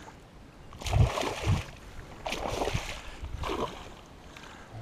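A hooked pike thrashing at the surface in shallow water beside the angler: several short bursts of splashing about a second apart.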